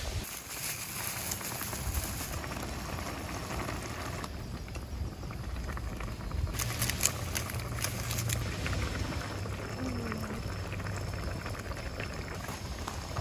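Soup bubbling in a pan on a portable gas stove, over a steady low rumble. A few light clicks and knocks about halfway through as the contents of a can are tipped into the pan.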